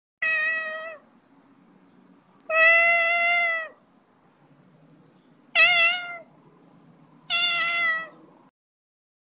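Siamese cat meowing four times in drawn-out calls; the second is the longest and the third wavers in pitch.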